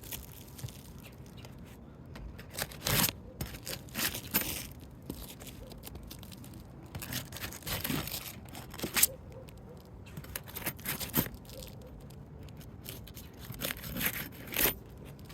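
Asphalt roof shingles being worked loose with a Roof Snake shingle tool: their adhesive seal strips break in short, irregular scraping and tearing bursts.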